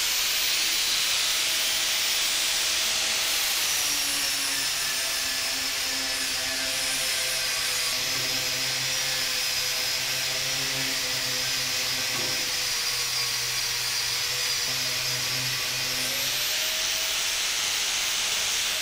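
Bosch GWS 800 4-inch, 800-watt angle grinder running with a flap disc and grinding a metal bar: a steady high motor whine over a hiss of abrasive on metal. The whine sinks a little in pitch from about four seconds in while the disc is worked on the metal, and climbs back near the end. At the very end it starts to wind down.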